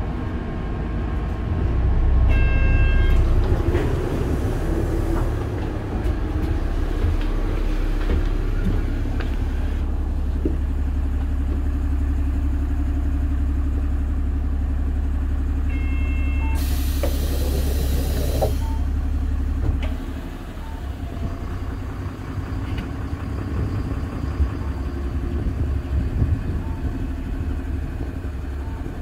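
Mitsubishi Fuso Aerostar city bus's diesel engine idling as it stands at a stop, heard first from inside the cabin and then from beside the bus. A short chime sounds twice, near the start and about 16 seconds in. Just after the second chime comes a two-second hiss of released compressed air, and the engine hum drops a little about 20 seconds in.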